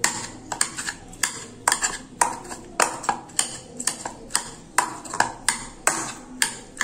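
Steel spatula edge chopping soft boiled bitter gourd, striking the bottom of the bowl in a regular run of sharp taps, about two a second.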